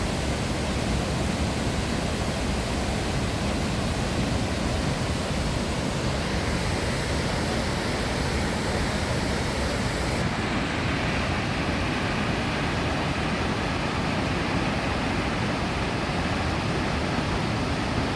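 Steady roar of Kalandula Falls, a large waterfall on the Lucala River, as a constant rushing hiss; the highest part of the hiss drops away about ten seconds in.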